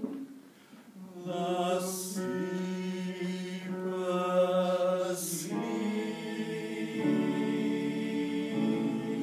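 An a cappella choir singing slow, held chords that move to a new chord every second or two, with two short sibilant 's' sounds.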